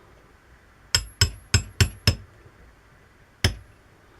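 A small hammer tapping on metal: five quick sharp taps, then a single tap about a second and a half later, each leaving a faint high metallic ring.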